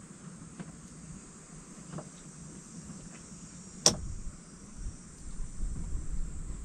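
Quiet outdoor ambience with a faint, steady, high-pitched insect drone, a few small ticks and one sharp click about four seconds in.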